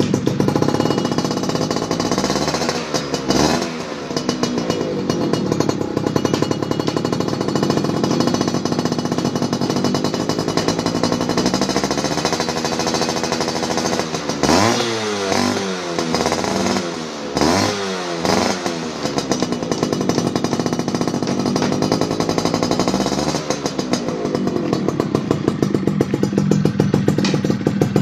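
Yamaha F1ZR's two-stroke single-cylinder engine running through a CRN aftermarket racing exhaust, idling with a rapid pulsing beat. It is revved in short blips several times, most of them clustered about halfway through.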